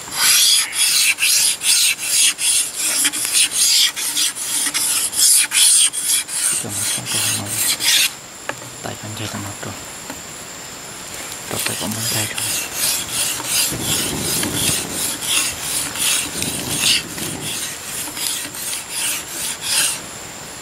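A blade scraping along a stalk of green bamboo, shaving it into fine fibres in quick repeated strokes. The scraping stops about eight seconds in and starts again a few seconds later.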